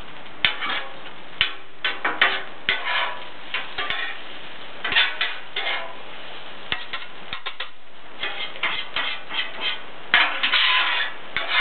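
Steel spatulas scraping and clacking on a Blackstone flat-top griddle as fried rice is chopped and tossed, in irregular strokes and quick runs of clicks.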